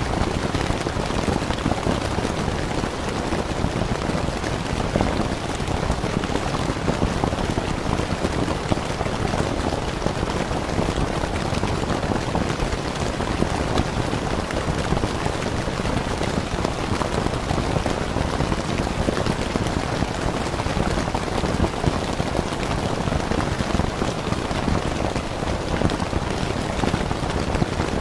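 Steady rain falling on a tent: a dense, even patter of drops that holds the same level throughout.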